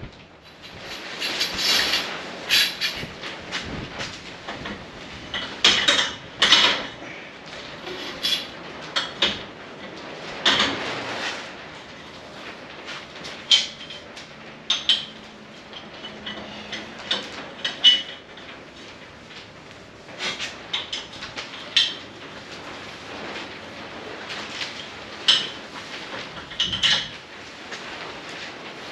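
Irregular metallic clinks, knocks and scrapes as a long steel rod is handled and fitted into mounts on a steel frame's top crossbar, with dozens of separate strikes, some ringing briefly.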